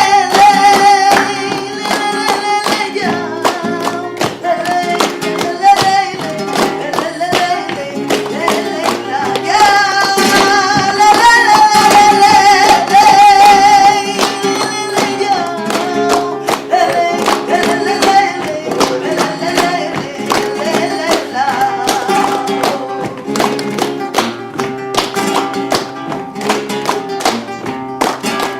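Flamenco tangos: a voice singing wavering, ornamented lines over acoustic guitar, with hand clapping (palmas) keeping the rhythm. The singing swells loudest about ten to fourteen seconds in.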